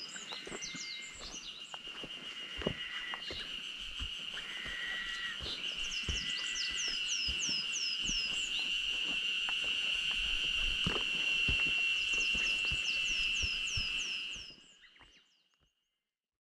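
A steady high-pitched drone that swells gradually and fades out a second or two before the end, which the hiker wonders may be a cicada or a frog. Runs of quick falling whistled notes from a bird sound over it, with light footsteps on a dirt trail.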